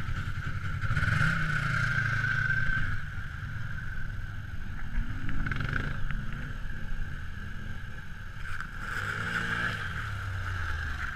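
ATV engines running as quads ride past close one after another, over a steady low engine hum and whine. The engines are loudest in the first few seconds and rise in pitch a little past halfway and again near the end as the riders throttle up.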